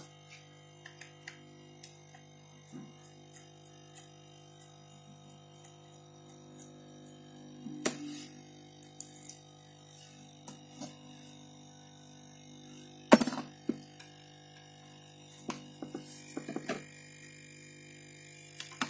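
Scattered small clicks and taps of a screwdriver and metal screws as the scanner's main board is unscrewed and lifted, with a sharper knock about two-thirds of the way through, over a steady faint electrical hum.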